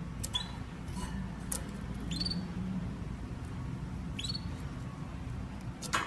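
Canary calling: three short upward-gliding chirps a couple of seconds apart, with a few sharp clicks over a steady low hum.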